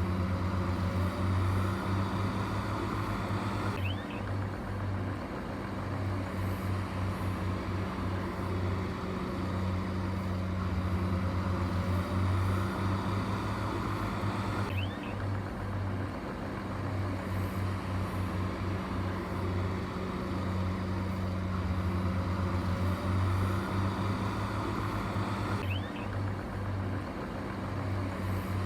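Heavy machine's diesel engine running steadily with a low, pulsing hum; the sound repeats about every eleven seconds.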